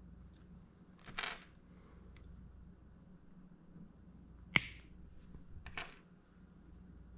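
Wire cutters snipping a drone motor wire: one sharp snip about four and a half seconds in. Two short rustles of the wires being handled come before and after it.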